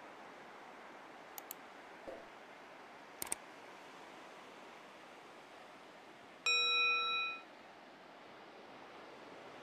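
Like-and-subscribe animation sound effects: two quick clicks about a second and a half in and another pair of clicks around three seconds in as the like and subscribe buttons are tapped, then a single bright notification-bell ding a little after six seconds that rings for about a second. Under them runs a faint steady hiss.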